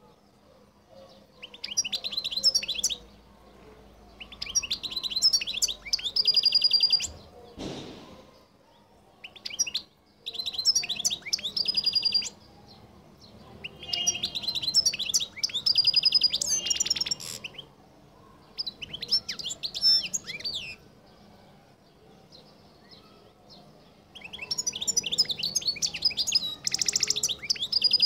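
European goldfinch of the Algerian Collo strain singing: bouts of rapid, high twittering and trills, about six phrases of two to three seconds each with short pauses between. A brief knock-like noise about eight seconds in.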